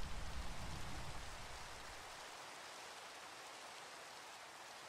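Faint steady rain falling, with the low rumble of a thunder roll dying away over the first couple of seconds.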